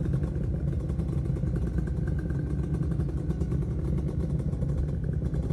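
Motorcycle engine running steadily, with fast, even firing pulses and no clear change in speed.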